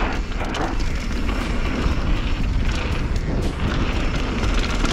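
Mountain bike riding fast down a dry, loose dirt trail: the steady rush of knobbly tyres on gravelly dirt under heavy wind buffeting on the camera microphone, with frequent small rattles and clicks from the bike.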